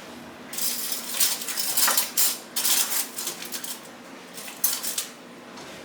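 A spoon scraping and clinking against a jar and bowl as mayonnaise is scooped into the chicken salad. There is a quick run of strokes for about three seconds, then a couple more sharp clinks near the end.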